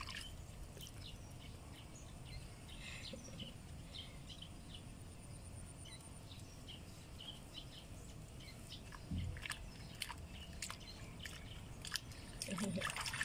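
Faint water splashing and dripping in a plastic basin as hands scoop and rub water over a baby monkey. Scattered small splashes and ticks come over a low background hiss.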